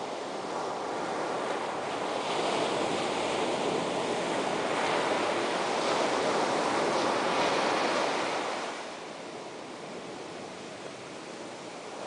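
Ocean surf: waves breaking and foaming water washing. The rush swells louder over several seconds, then falls back quieter about nine seconds in.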